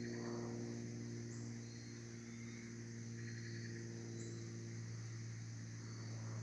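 Woodland insects calling: a steady high buzz with short pulsed trills coming and going every second or so, over a steady low hum.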